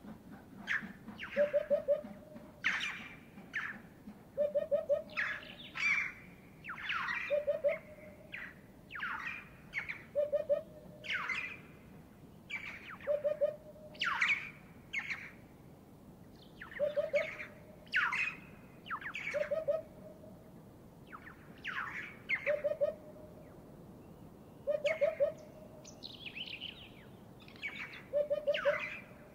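Eurasian hoopoe singing its low three-note 'oop-oop-oop' phrase every two to three seconds. Over it, other birds give frequent louder, sharp calls, with a brief scratchy warble near the end.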